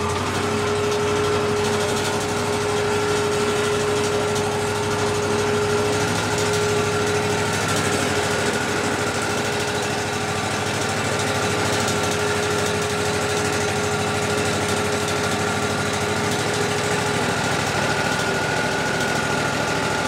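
Wood-Mizer LT40 band sawmill's engine running steadily, with a steady tone over it, as the saw head travels along the track toward the log.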